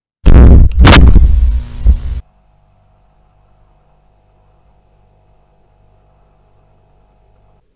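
Horror-film jump-scare sound effect: a sudden, very loud burst with a deep rumble and a second hard bang under a second later, dying away and cutting off abruptly about two seconds in. A faint low steady hum follows.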